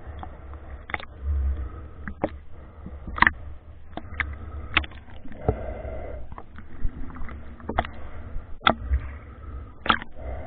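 Water sloshing and bubbling around a waterproof camera as it dips in and out of the water during a swim, with a low rumble and irregular sharp clicks and knocks, roughly one a second.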